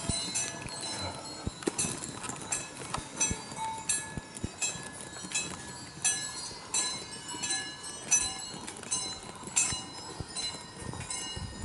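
Many small metal bells tinkling irregularly, a few strikes a second, each strike leaving high ringing tones.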